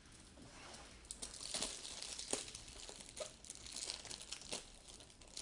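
Trading-card packaging crinkling and crackling in irregular bursts as it is handled, starting about a second in.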